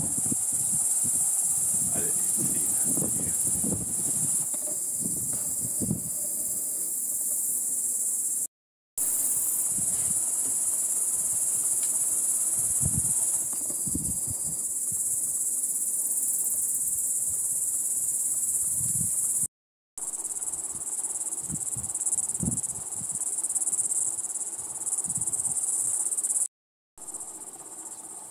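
Steady high-pitched insect chorus from a marsh in summer, with intermittent low rumbles underneath. The sound cuts out briefly three times.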